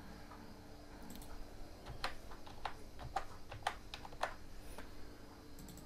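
Computer keyboard keys being typed: a quick run of about eight to ten light key clicks between about two and four seconds in, as a short word is entered into a search box, over a faint steady hum.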